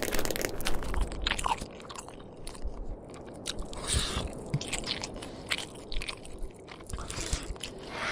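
Gory crunching and cracking sound effects of a creature biting into a body: a run of sharp, irregular cracks with a few low thuds among them.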